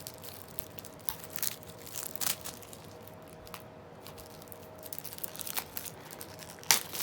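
Plastic shrink wrap on a Blu-ray case crinkling and crackling as it is handled and picked at, in scattered bursts, loudest near the end. The wrap has partly melted onto the case.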